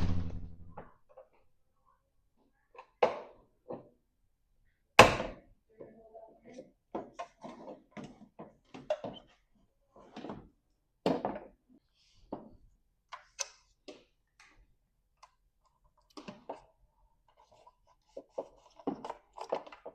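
Plastic front turn signal housing of a Chevrolet Express van being popped out and handled: scattered clicks, knocks and thunks, the loudest a sharp knock about five seconds in.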